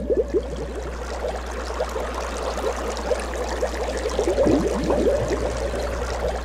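Bubbling, gurgling water sound made of many quick falling chirps, heaviest near the start and again about two-thirds through, over a steady low hum.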